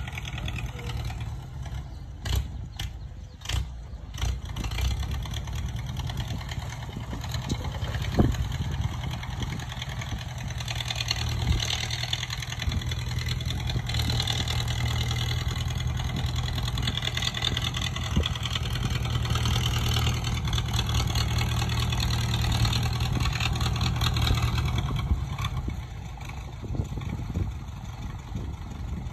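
Farm tractor's diesel engine running under load as it pushes soil with a front dozer blade. It grows louder about a third of the way in, holds there, and drops back a few seconds before the end. A few sharp knocks come in the first few seconds.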